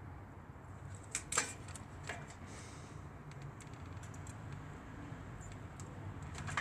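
A few faint clicks and light ticks from handling tools and the circuit board during soldering, the clearest about a second in, over a low steady hum.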